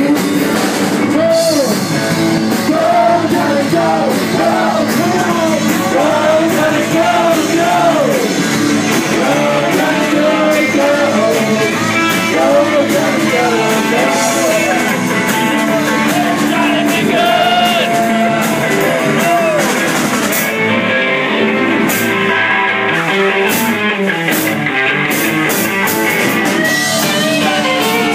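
Live rock band playing loud, with a male singer singing into a microphone over guitar and drums. The singing thins out in the last third, where sharp drum and cymbal hits stand out.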